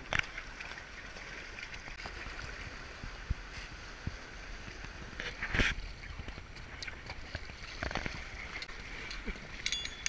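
River water rushing and gurgling around an inflatable raft running through choppy rapids, with a few short thumps, the loudest about five and a half seconds in.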